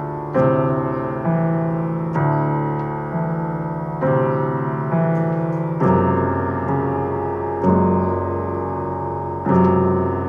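Background music: a piano playing an even run of chords, a new chord struck about once a second and fading before the next.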